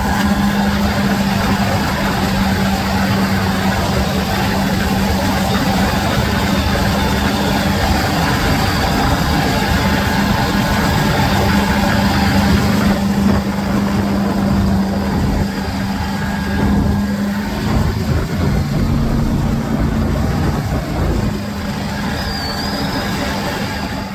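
LS-swapped jet boat's GM V8 engine running steadily at speed with a rush of water from the wake. Its steady note breaks up and drops to a lower one about three-quarters of the way through.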